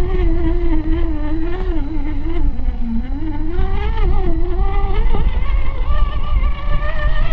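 Electric motor and gear drive of an Axial SCX10 II-based RC crawler whining as it climbs over rock. The pitch rises and falls with throttle and load, dipping lowest about three seconds in, over a low rumbling noise.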